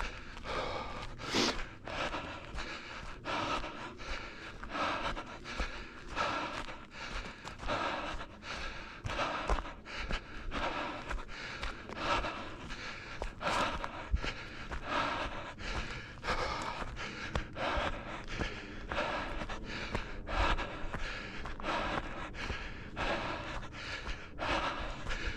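A runner breathing hard and rhythmically, about one heavy breath a second, over scattered low thuds.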